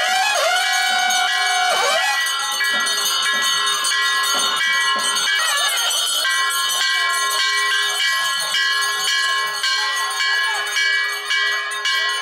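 Pooja bells ringing continuously, many clear tones at once, over a crowd's voices; a wavering pitched tone fades out about two seconds in.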